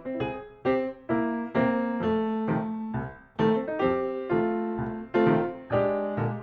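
Background piano music: struck notes and chords about twice a second, each ringing and fading before the next.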